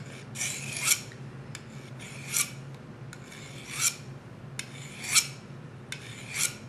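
Dull steel skinning knife stroked edge-first across the coarse 220-grit side of a DMT Diafold diamond sharpener, grinding a new edge. Five scrapes about one and a half seconds apart, each swelling to a short peak at its end.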